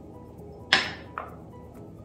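Soft background music, with two short knocks of kitchenware about three-quarters of a second and a second in, the first louder, as a small spice cup and a glass spice jar are handled.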